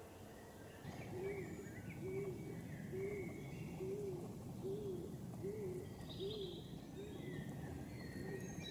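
A pigeon cooing: a steady series of low, rise-and-fall coos, about one every 0.7 seconds, starting about a second in. Small birds chirp higher up, over a low rumble.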